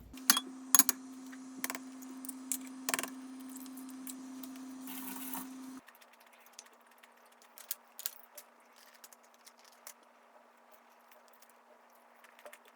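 Scattered sharp clicks and taps at an irregular pace, over a steady low hum that cuts off suddenly about six seconds in; the clicks carry on more sparsely after it.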